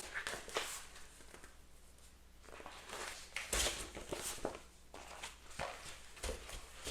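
Paper pages of a book turning and rustling, in short irregular swishes, with a couple of soft thuds as the book is handled.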